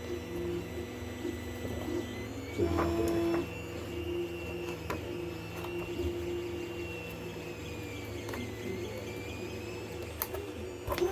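A steady mechanical hum with a faint whine that slowly rises and falls, and a few soft clicks, about three, of an elastic strap being handled.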